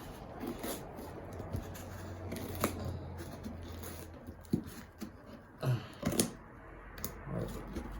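Scissors cutting into a package while the packaging rustles, with a few sharp clicks.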